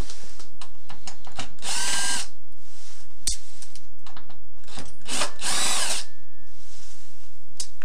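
Cordless power driver running in two short bursts a few seconds apart, backing out the small Phillips screws that hold an electric range's infinite switch to its control panel. Clicks and a sharp tap come between the bursts.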